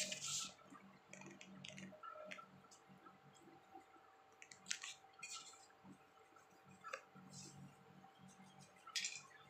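A person eating close to the microphone: soft wet chewing and lip smacks, with scattered short clicks of chopsticks against food and plates. There is a brief rustle near the end as a paper tissue is handled.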